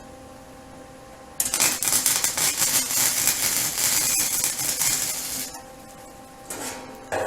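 Welding arc crackling steadily for about four seconds on a 16-gauge sheet-steel patch, starting about a second and a half in and cutting off abruptly. A light knock or two follows near the end.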